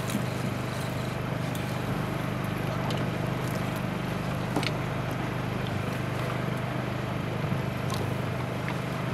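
A boat's engine running steadily at idle, a low even hum, with a few light clicks scattered through it.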